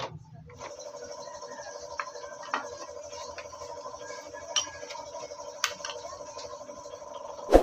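Light metallic clinks and taps of motorcycle engine gears and shafts being handled and fitted into an aluminium crankcase, over a steady hum, with a sharper knock near the end.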